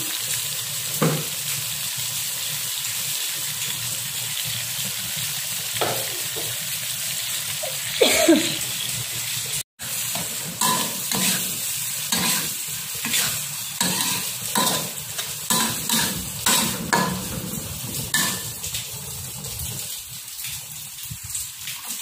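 Pork, prawns and squid sizzling in a hot wok while a metal spatula stirs and scrapes against the pan. The scraping strokes come thick and fast in the second half, and the sound cuts out for an instant about ten seconds in.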